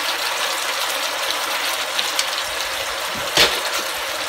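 Liver and onions sizzling in a frying pan with a little hot water just added for the sauce: a steady hiss, with a light click about three seconds in.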